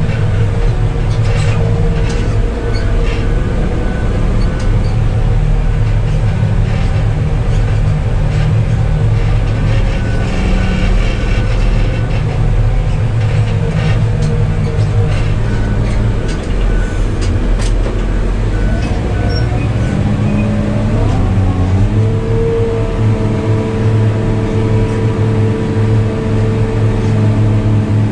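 Motor grader's diesel engine running steadily under work, rising in pitch about twenty seconds in and then holding at the higher speed.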